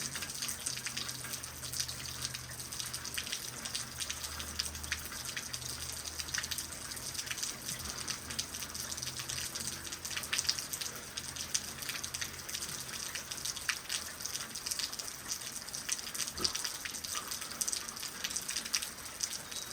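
Steady rain falling, with many small drop hits, and a low hum under it for the first several seconds.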